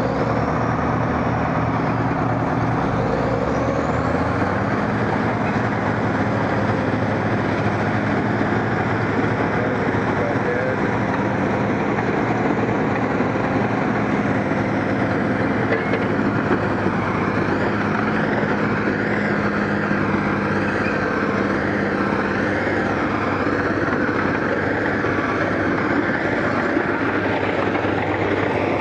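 Diesel engine of a crawler track loader running steadily as it works, its note stepping up a little about four seconds in.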